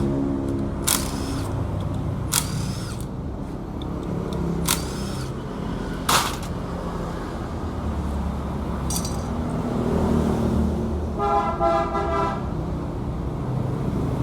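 Motorcycle engine running steadily, with several sharp clicks spaced a second or more apart in the first half. A vehicle horn sounds briefly about three quarters of the way in.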